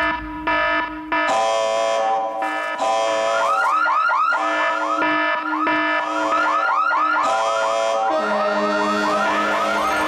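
An electronic alarm siren cycling through patterns: broken steady tones, then rapid rising whoops about three a second, switching to another pattern with a lower tone after about eight seconds.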